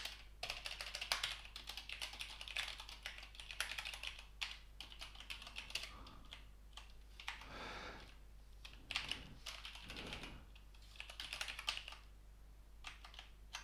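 Typing on a computer keyboard: quick, irregular keystrokes in short runs with brief pauses between them.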